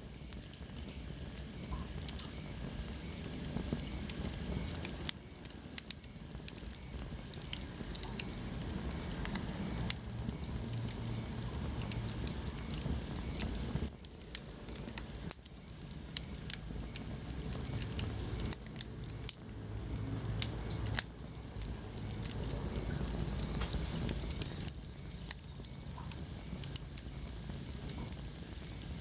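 Wood fire burning in a fireplace, crackling with irregular sharp pops over the low, steady rumble of the flames.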